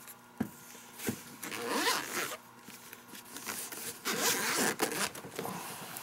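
Zipper of a padded hard-shell tool case being pulled open around its edge in two stretches of rasping, with a couple of short clicks from handling the case just before.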